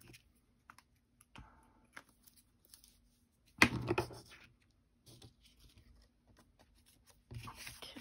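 Pieces of cardstock being handled and moved about on a cutting mat: light paper rustles and taps, with one louder rustle of paper about three and a half seconds in.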